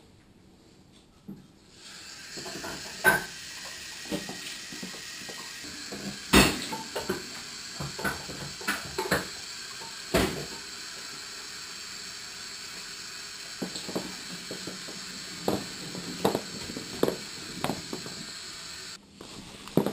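Washing up at a kitchen sink: a tap runs steadily while dishes and cutlery clink and knock together, several sharp knocks standing out. The running water starts about two seconds in and cuts off near the end.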